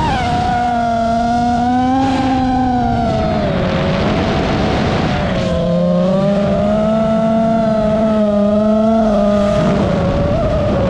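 FPV quadcopter's motors and propellers whining steadily, the pitch rising and falling as the throttle changes, with a sharp climb in pitch right at the start.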